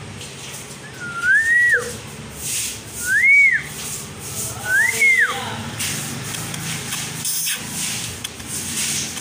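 Three clear whistles, each rising in pitch and then falling away, about a second and a half apart, with faint rustling between them.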